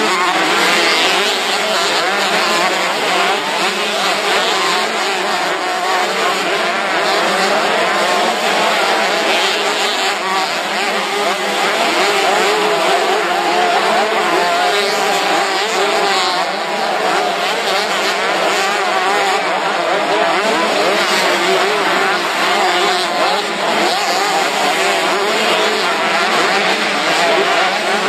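Several motocross motorcycle engines running at once, their pitches rising and falling over each other as the bikes rev and shift, at a steady loud level throughout.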